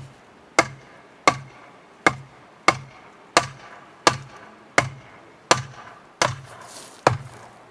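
Sledgehammer blows on the top of a wooden locust fence post, driving it into the ground: about eleven sharp strikes at a steady pace, roughly one and a half a second, each with a short low thud.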